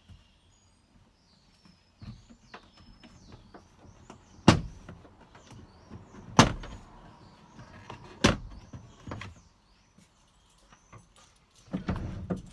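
Plastic retaining clips of a 2003 Ford Windstar's sliding-door trim panel popping loose as the panel is pried off: three loud sharp snaps about two seconds apart, with smaller clicks and rustling of the panel between them and a rougher scraping near the end.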